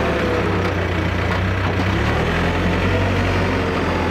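Diesel engine of a Case backhoe loader running steadily.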